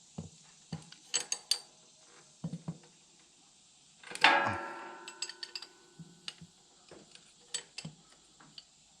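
Metal wrenches clicking and clinking against each other and the mower's oil drain plug while loosening it, with one loud metallic clang about four seconds in that rings for a couple of seconds.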